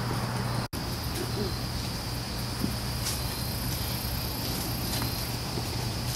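Steady high chirring of an outdoor insect chorus, over a low steady hum. The sound drops out for an instant under a second in.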